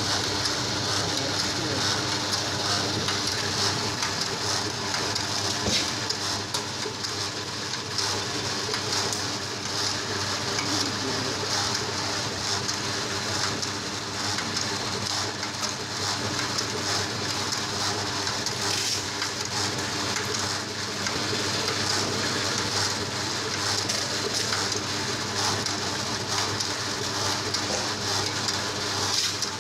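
Maksindo BA60 round dough divider running steadily while it divides and rounds dough: a constant motor hum under an even hiss.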